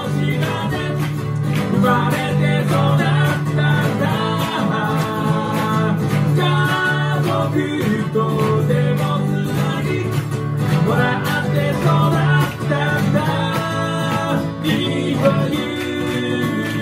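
Live band music: strummed acoustic guitars with singing.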